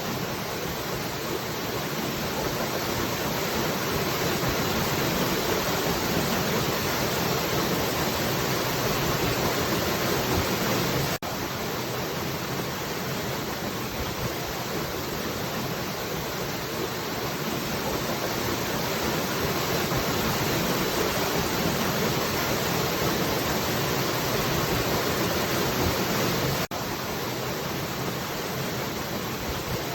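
Falling water making a steady, even rush. The sound dips for an instant twice, about 11 and 27 seconds in.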